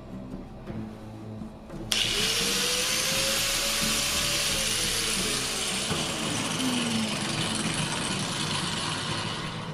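Angle grinder with a cut-off disc starting a cut about two seconds in: a loud, steady hiss of the abrasive disc cutting, with the motor's whine dropping in pitch partway through as it takes the load. Background music sits underneath.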